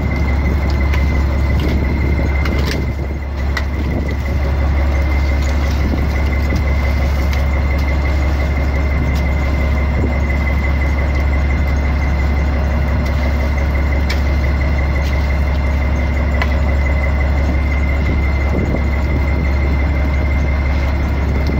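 Fishing boat's engine running steadily: a loud, constant low drone with a thin high whine over it, and a few faint clicks as the catch is handled on deck.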